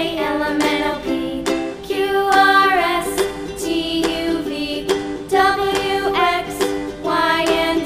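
Background music: a steady plucked-string accompaniment under a melody line.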